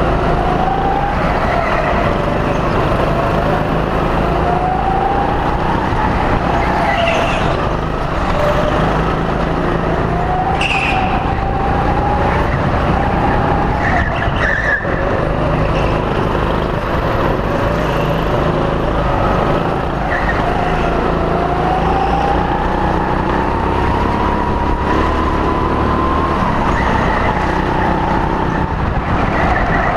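Onboard sound of a go-kart driven hard around the track: its motor note rises and falls again and again with the throttle through the corners, over a steady rush of tyre and wind noise.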